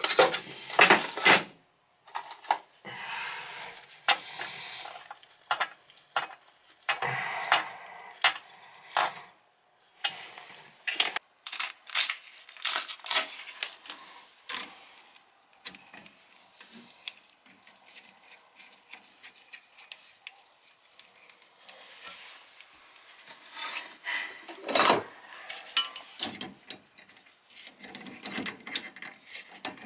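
Irregular clinks, clicks and scrapes of metal hand tools and plumbing fittings during a toilet install, loudest in a quick cluster at the start and again about three quarters of the way through. Near the end, pliers work on the braided supply line at the toilet's shutoff valve.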